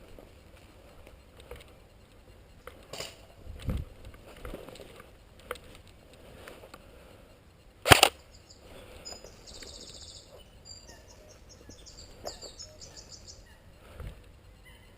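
Scattered light knocks and footsteps of a player moving, with one sharp, loud crack about eight seconds in. After it come a few seconds of high, rapid chirping.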